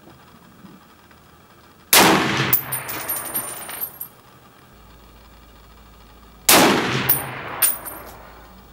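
Two rifle shots from a .308 rifle fitted with a VG6 Gamma muzzle brake, about four and a half seconds apart. Each sharp report is followed by about two seconds of rolling echo with a high metallic ringing.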